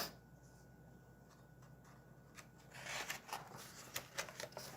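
Paper rustling as a picture book's pages are turned: a brief soft rustle, then a flurry of rustles and small clicks from about three seconds in.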